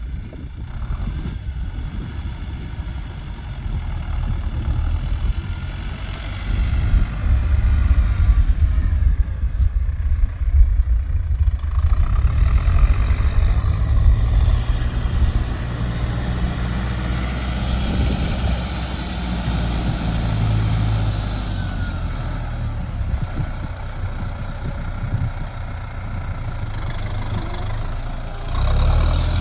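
A heavy vehicle engine running steadily, louder from about seven seconds in, with a brief rise in level near the end.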